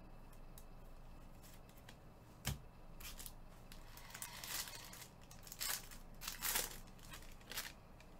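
Gloved hands opening a cardboard trading-card box and handling the plastic-cased cards inside. A sharp knock comes about two and a half seconds in, followed by several short rustling bursts.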